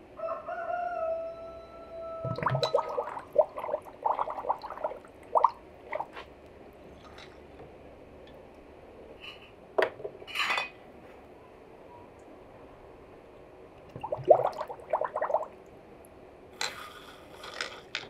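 A rooster crows once at the start, a single held call of about two seconds. Then come bursts of bubbling and gurgling, twice, as an upturned glass bottle is pushed down into a tub of liquid and air escapes, with a few clinks of glass.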